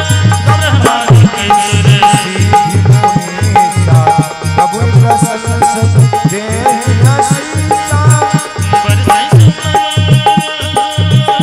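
Indian devotional bhajan music: harmonium melody over a steady dholak rhythm, with manjira hand cymbals ringing on the beat about twice a second.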